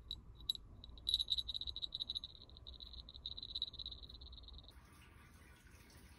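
High, rapidly pulsed trilling call of a small animal. It grows stronger about a second in and stops abruptly about three-quarters of the way through, when a soft high hiss begins.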